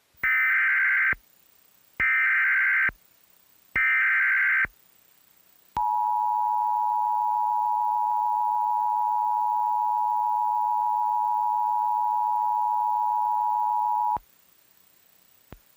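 Emergency Alert System tones: three short, loud bursts of the SAME digital header data, then the steady two-tone EAS attention signal held for about eight seconds before it cuts off. Together they mark the start of an emergency alert broadcast.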